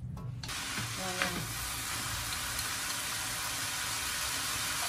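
Rice vermicelli, carrots and green beans sizzling in a hot wok as they are stir-fried, a steady hiss that starts suddenly about half a second in.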